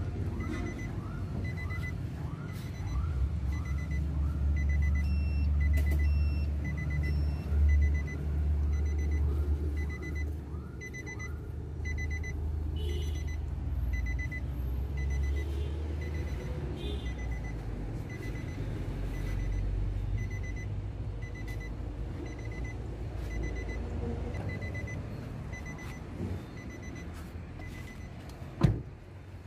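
Nissan Navara's warning chime beeping evenly, about twice a second, with the driver's door open, over a low rumble. Near the end there is a single sharp thump, such as the door being shut.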